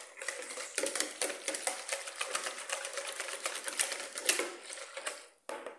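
Hand wire whisk beating rapidly in a bowl of hot gelatin dissolved in boiling water, a fast, even run of clicks from the wires striking the bowl; it pauses briefly near the end, then strikes a few more times.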